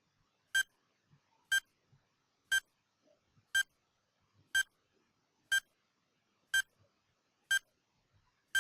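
Short electronic beeps, one each second, eight in all: the per-second tick sound of a countdown timer.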